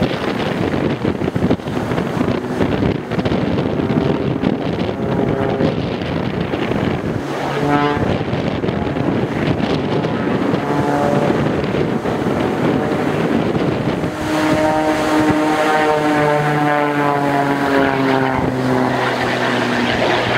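Extra 300 aerobatic plane's six-cylinder Lycoming engine and propeller droning overhead, its pitch shifting as it manoeuvres, with a long downward slide in pitch over the second half. Heavy wind buffets the microphone throughout.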